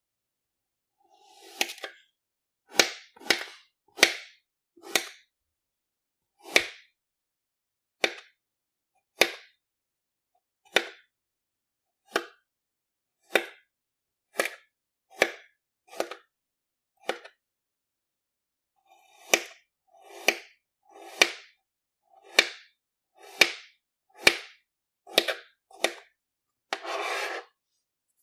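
Kinetic sand being sliced with a thin blade: a series of crisp crunching cuts, about one a second, each swelling briefly and stopping short. Near the end comes a longer scraping sound lasting about a second.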